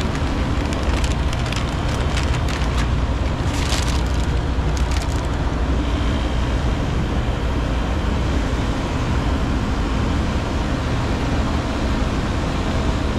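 Crinkling and crackling of a foil anti-static bag being opened for a new controller board, for the first five seconds or so, over a steady low rumble that runs throughout.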